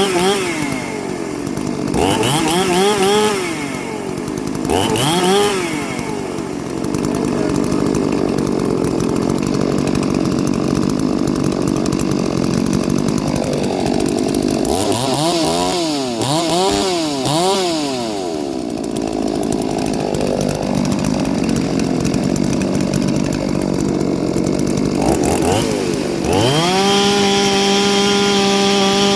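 Ported two-stroke chainsaw revved up and down several times, running under load through hardwood for a long stretch, then climbing to a steady high-pitched full-throttle scream near the end.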